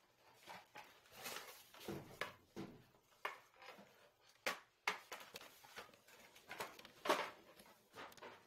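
Plastic grocery packaging and a cardboard box being handled by a toddler: irregular rustling and crinkling with a few light taps and knocks.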